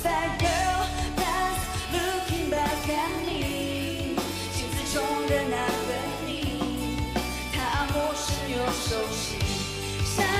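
A woman singing a pop-rock song live, partly in English and partly in Mandarin, backed by a band with drums, bass guitar, electric guitar and keyboards.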